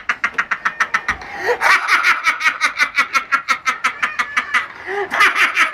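A man laughing hard and without a break, in a fast run of short 'ha' bursts, about six a second, that cuts off abruptly near the end.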